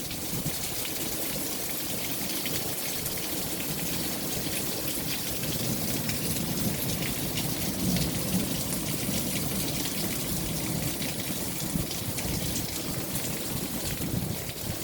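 Steady rain falling, a dense hiss of drops hitting surfaces, with a low rumble underneath.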